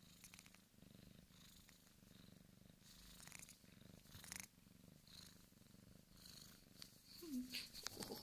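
Bengal kitten purring steadily, close to the microphone, with brief rustling as it is handled, about three seconds in and again near the end.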